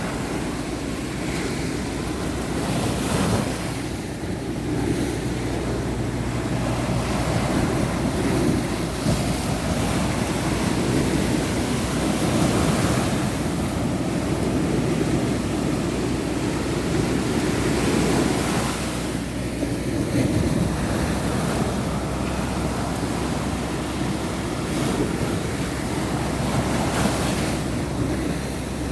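Sea waves washing continuously onto a sandy beach, with the surf swelling every few seconds, and sea wind buffeting the microphone.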